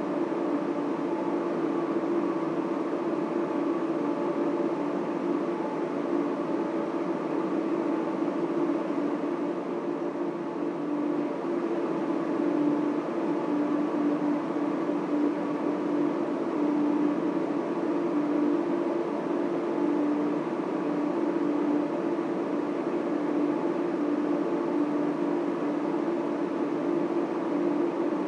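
Data center machine noise: a steady drone of cooling fans and equipment, with a constant hum.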